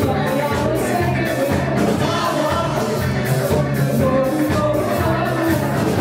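Live funk-disco band playing with a steady beat: drums, bass, electric guitars, keys and congas, with a woman singing over them.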